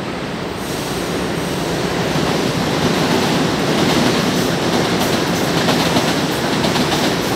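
São Paulo Metro K-fleet train pulling away after its doors close, the running noise building over the first couple of seconds, then wheels clacking over rail joints at a regular beat.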